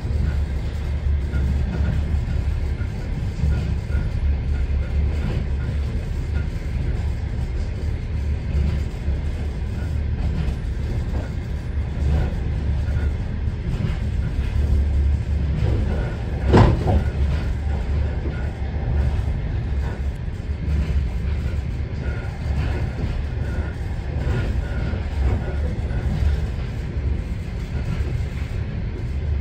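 Steady low rumble of a moving passenger train heard from inside the carriage. One sharp knock comes about sixteen and a half seconds in.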